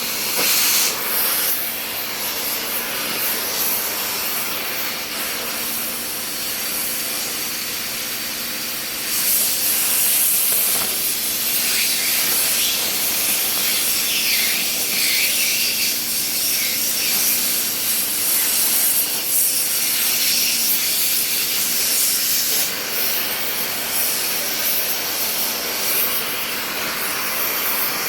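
Electric welding arc hissing steadily, with a faint steady hum underneath; the hiss grows louder about nine seconds in.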